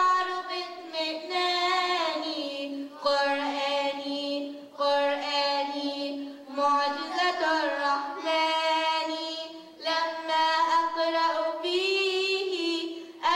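Young girls singing an Arabic nasheed unaccompanied: one melody line of long, held notes with ornamented turns, broken by short breaths.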